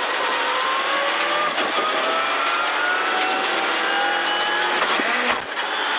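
Mitsubishi Lancer Evo X rally car's turbocharged four-cylinder engine heard from inside the cabin, pulling hard under full acceleration with its pitch rising steadily for about five seconds. It dips briefly at an upshift before pulling again.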